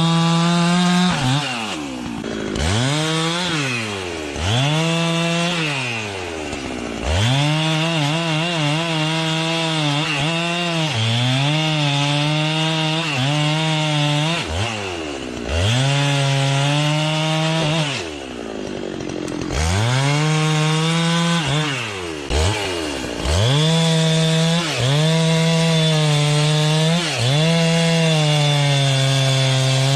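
Two-stroke chainsaw cutting wood: the engine is held at full throttle through each cut, its pitch wavering under load, then drops back toward idle and revs up again, about eight times over.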